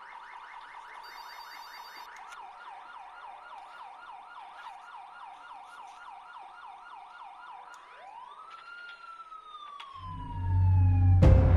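Emergency-vehicle siren in yelp mode, quick rising sweeps about four a second, changing near the end to a single slow wail that rises and then falls away. In the last second or two a loud, low, dark music drone comes in, with a sharp hit just before the end.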